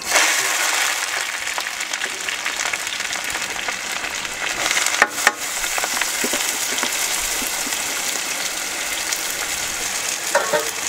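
Green chillies and chopped onion tipped into hot oil in a large aluminium kadai for an upma tempering. The oil sizzles at once and keeps sizzling steadily, with a couple of sharp clicks about five seconds in.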